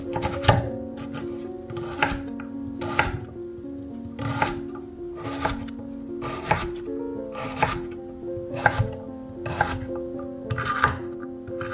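Chef's knife chopping a carrot on a wooden cutting board, one sharp cut about every second, over background music of held tones.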